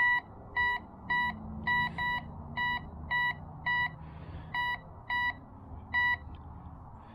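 Marnur MROG-810 metal detector giving short, identical high beeps, about ten of them, each time a silver Barber quarter is swept toward its coil in an air test. The beeps drop out for about a second in the middle while the coin is held out of range.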